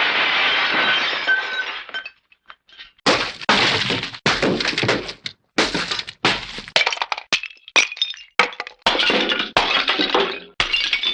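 Classic Hanna-Barbera cartoon smash sound effects played one after another: crashes of breaking glass with clattering, tinkling debris. One long crash comes first, then a short pause, then a quick run of separate shorter crashes.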